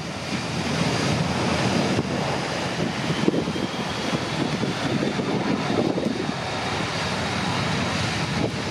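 Jet noise from a Handley Page Victor K2's four Rolls-Royce Conway engines at high power as the bomber-tanker accelerates away down the runway: a steady rushing roar with a faint falling whine.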